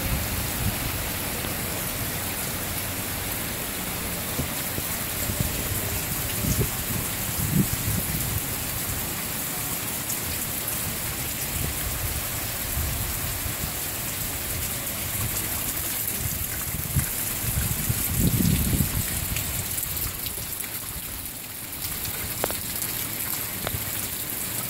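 Heavy rain pouring onto a flooded street and yard, a steady hiss, with a few brief low rumbles, the loudest about three-quarters of the way through.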